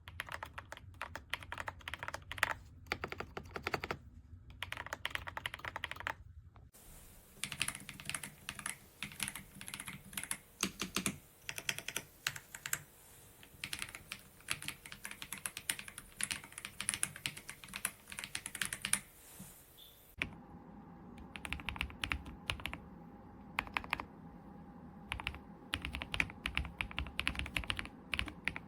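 Typing on an EPOMAKER Ajazz AK820 Pro gasket-mount mechanical keyboard: a fast, irregular run of key clicks. The background and tone change abruptly about 7 seconds and 20 seconds in, like separate takes.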